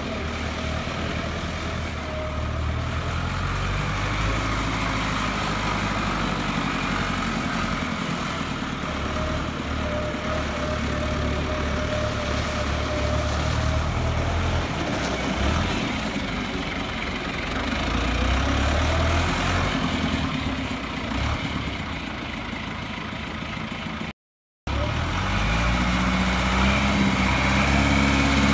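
John Deere 2755 tractor's 3.9-litre four-cylinder turbo diesel running as the tractor drives about, its pitch shifting a little with the throttle. The sound drops out for a moment near the end, then the engine revs up and holds higher.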